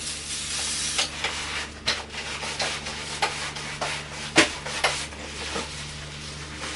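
Hands working on a moped's throttle grip and cable housing: rubbing and scraping with irregular clicks, the sharpest knock about four and a half seconds in, over a steady low hum.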